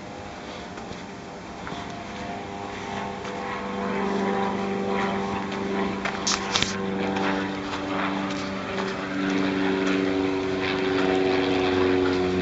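A steady engine drone that grows gradually louder, its pitch shifting slightly. About halfway in come two brief, high, sharp chirps.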